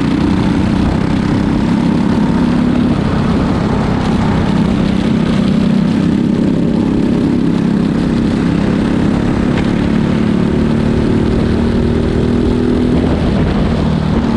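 Onboard sound of a Briggs & Stratton single-cylinder four-stroke kart engine running at racing speed, loud and steady, its pitch shifting a little as the throttle changes.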